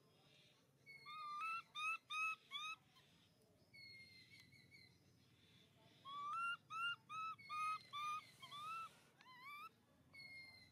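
Baby macaque giving high, squeaky cries: two quick runs of four to six short rising-and-falling calls, each run about two seconds long, with a few longer flat whistle-like calls between and a rising squeal just before the end.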